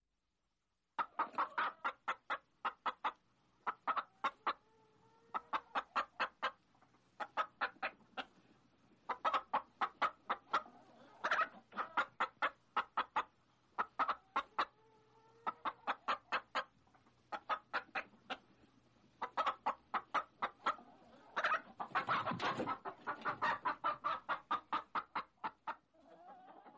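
Desi hens clucking in quick runs of short clucks, several a second, with short pauses between runs, starting about a second in. Near the end comes a louder, denser stretch of clucking.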